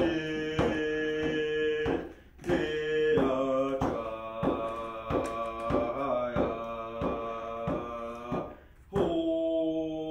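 A Squamish man singing in long held notes while beating a hide hand drum at a steady pace of about two beats a second. The song breaks briefly for a breath about two seconds in and again near the end.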